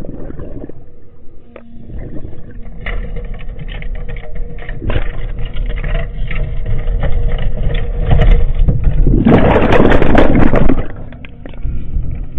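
Caterpillar excavator at work, a steady low rumble with scattered knocks and clanks. A loud rush of noise starts about nine seconds in and lasts about a second and a half.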